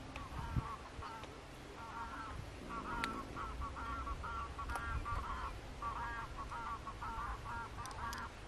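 A flock of wild geese calling in the distance: many short honking calls overlapping in a continuous chorus.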